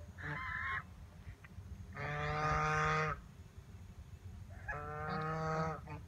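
White domestic geese honking: three calls, a short one at the start, a loud one about a second long two seconds in, and another long one near the end.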